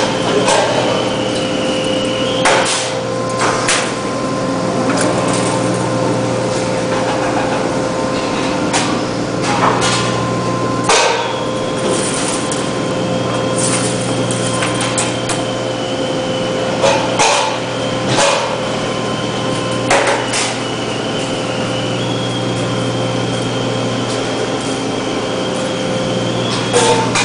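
Sheet-metal V-grooving (V-cutting) machine running: a steady hum with a high whine that starts and stops, and sharp metallic knocks and clanks every few seconds.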